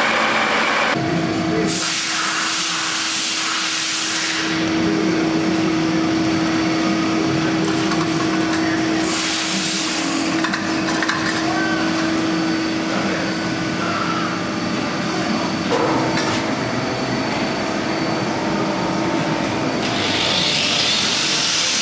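Manual lathe running, turning down a hydraulic cylinder part: a steady machine hum that stops about three quarters of the way through, with three stretches of louder, higher cutting noise.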